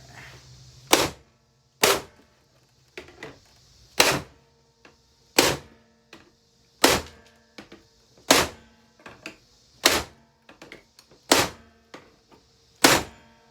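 A hammer striking a Hoover vacuum cleaner's casing again and again: about nine hard blows roughly a second and a half apart, with lighter knocks between them.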